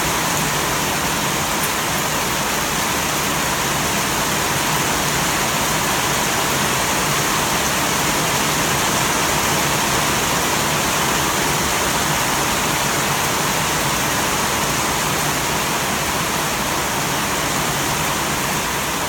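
Heavy rain pouring steadily onto dense foliage and a corrugated roof, with runoff streaming off the roof's edge.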